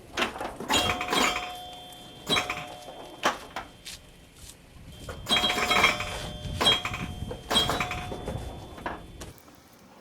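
Cardboard being thrown into a metal recycling hopper: a series of knocks and clatters, some leaving a short metallic ring. The sounds come in two busy runs, with a lull around the middle.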